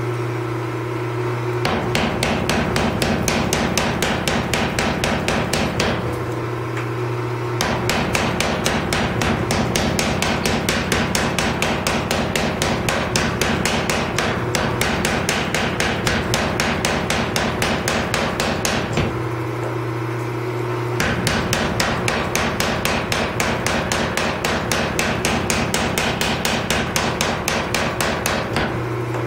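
Power hammer pounding a red-hot Damascus steel billet at welding heat in three runs of rapid, even blows, forge-welding the stacked layers into one bar. Two short pauses, about a quarter and two-thirds of the way through, leave only a steady hum.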